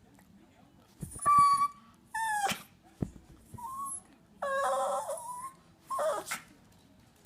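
Chihuahua whimpering and whining in about five short, high-pitched cries, several of them sliding down in pitch at the end.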